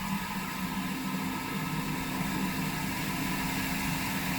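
Smart toilet's warm-air dryer blower running, a steady whirring hum with a faint high tone.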